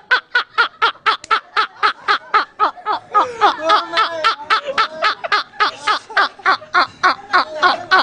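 Human laughter: a fast, steady run of short 'ha' bursts, about five a second. About three seconds in, a second, lower-pitched laughing voice with longer notes joins over it.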